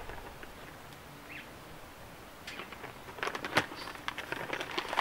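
Thin black plastic nursery bag crinkling and crackling as it is pulled open and peeled down off a root ball. The crackles start about halfway through and are loudest about three and a half seconds in.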